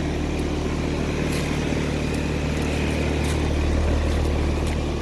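Heat pump air conditioner running, so loud: a steady low hum with an even rush of fan noise over it.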